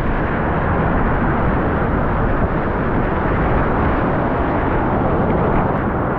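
Steady roar of rushing whitewater.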